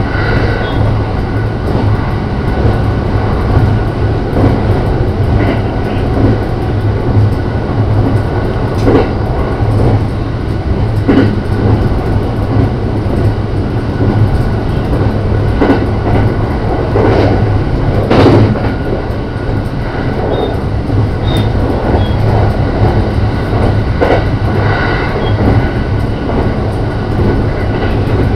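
JR Shikoku 5000 series electric multiple unit running along the line: a steady rumble of wheels on rail with a low hum, broken by a few scattered knocks from the track.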